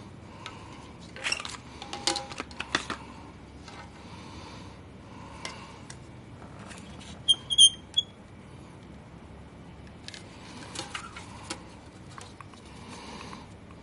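Scattered light clicks and taps of small hard objects being handled, in two clusters. About seven seconds in there is a short high chirp of three quick notes.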